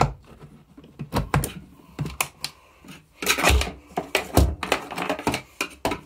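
A mains plug pushed into a wall socket with a click, followed by a run of irregular knocks, clicks and rustles from handling.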